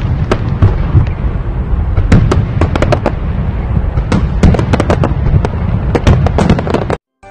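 Aerial fireworks display: many irregular bangs and crackles of bursting shells over a continuous low rumble, cutting off abruptly near the end.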